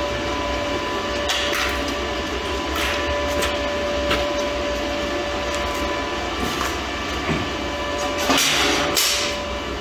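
Steady machine hum with a high whine that stops about eight seconds in, under light metal clanks and scrapes as 1/8-inch steel grill parts are handled and fitted into the frame, the clanks bunching up near the end.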